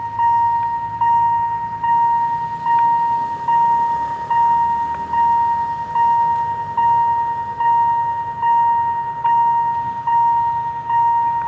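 Railway level-crossing warning bell ringing steadily, one clear ding a little more than once a second, each fading before the next.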